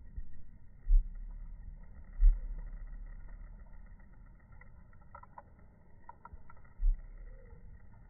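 Three low thuds, each followed by a dull rumble, with a few faint short clicks between the second and third.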